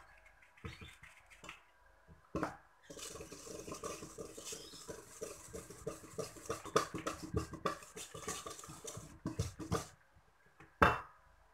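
Hand wire whisk stirring sifted flour into a thick egg-and-oil batter in a stainless steel bowl, with rapid scraping and clinking against the metal. The stirring stops, and a single sharp knock on the bowl follows near the end.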